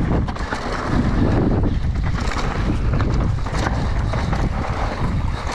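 Wind buffeting an action camera's microphone during a fast mountain-bike descent, with tyre noise on a dusty dirt trail and scattered knocks and rattles from the bike over bumps.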